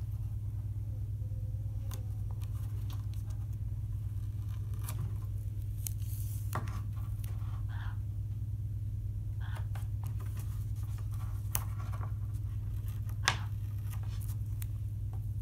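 Hands working paper and double-sided tape on cereal-box cardboard: scattered faint rustles, scrapes and clicks of tape being pulled and pressed and paper being folded, over a steady low hum.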